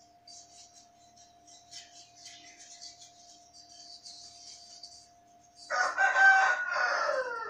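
A rooster crows once near the end, loud, with the call falling in pitch as it ends. Before it, faint scrubbing and splashing of brass items being washed in a basin of water, over a faint steady hum.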